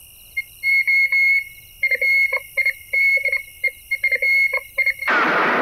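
A high, whistle-like tune of short held notes that stop and start in a broken melody. About five seconds in, it cuts off abruptly into a loud, dense wash of noise, the start of a gunfire scene.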